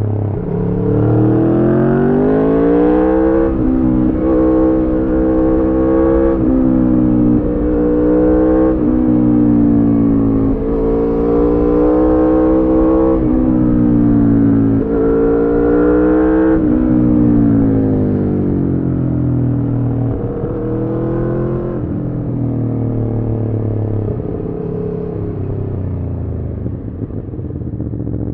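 Aprilia Tuono V4's V4 engine through a decat Arrow slip-on exhaust, accelerating hard: the pitch climbs and drops back at each of several quick upshifts. Past the middle it eases off, with the pitch falling as the bike slows.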